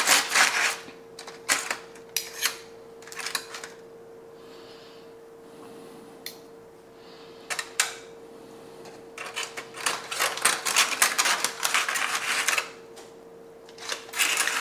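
Knife slicing a rested beef brisket in a foil-lined metal sheet pan, with a fork holding the meat: several bursts of quick clicking and scraping as the blade saws and hits the foil and pan, with a lull in the middle. A faint steady hum runs underneath.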